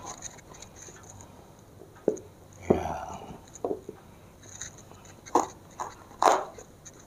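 A knife knocking on a cutting board as limes are cut in half: a handful of separate sharp knocks spread over several seconds, the loudest near the end.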